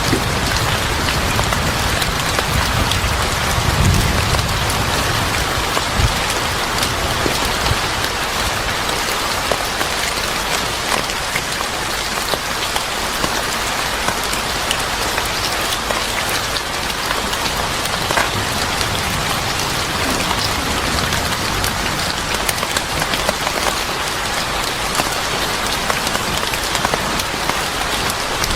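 Steady rain falling on a surface, with scattered sharp ticks of single drops. A low rumble swells briefly about four seconds in.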